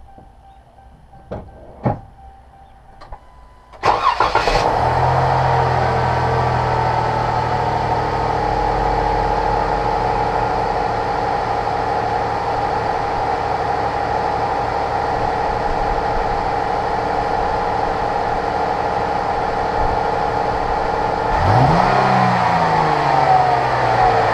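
A few light clicks, then the 2013 Dodge Durango's 3.6 Pentastar V6 cranks and starts about four seconds in and settles into a steady idle. Near the end the engine is revved once, its pitch rising and falling back.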